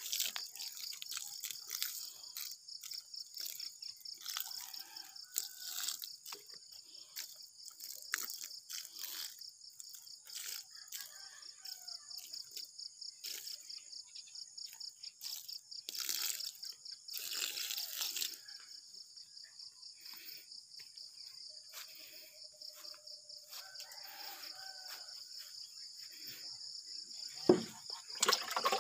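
Insects chirring steadily in a fast, even pulse, with water poured from a plastic dipper splashing onto garden soil now and then, most strongly in the middle.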